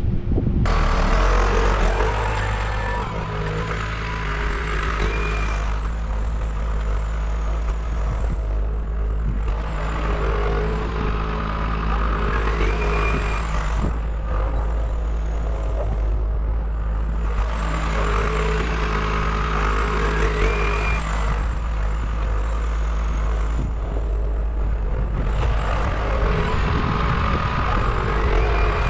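A vehicle-type engine running steadily with a deep hum. A set of higher whining tones swells and fades about every seven or eight seconds.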